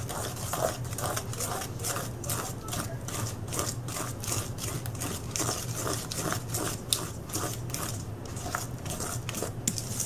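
A spoon stirring thick powdered-sugar icing in a stainless steel bowl, scraping and clicking against the metal several times a second.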